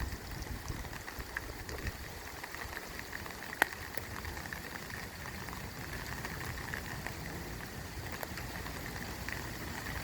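Rain falling steadily in a thunderstorm, with scattered drops tapping close by and one sharp tap about three and a half seconds in.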